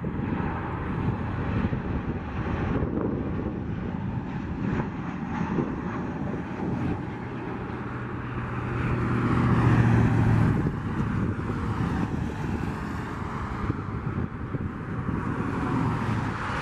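Jet engines of a Southwest Boeing 737-700, CFM56 turbofans, on final approach, a steady noisy rumble that swells about nine seconds in as the airliner passes closest, with a low engine tone that then eases off as it reaches the runway.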